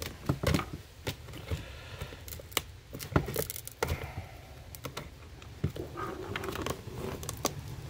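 Flat-blade screwdriver prying and scraping at glued-in side-mirror glass in its plastic housing: irregular sharp clicks and scrapes of the steel tip against glass and plastic as the glass is worked loose.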